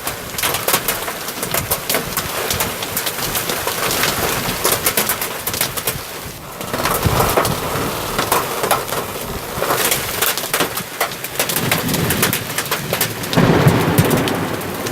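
Heavy rain falling, dense fine ticks of drops striking a surface, with a low rumble swelling up near the end.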